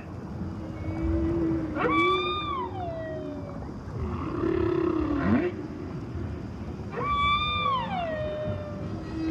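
Whale calls: two long moaning calls, about 2 and 7 seconds in, that sweep sharply up, hold a high note and then slide down, with shorter rising whoops between them over a steady low tone.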